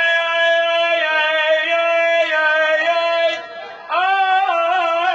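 A solo voice singing long held notes that waver in pitch. It breaks off briefly about three and a half seconds in, then starts again on a new phrase.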